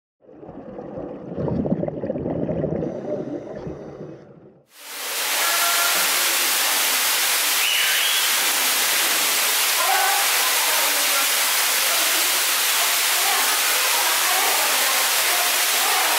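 An opening sound effect lasting about four and a half seconds, then a sudden cut to a steady rush of running water filling the shoebill enclosure, with a few faint short chirps over it.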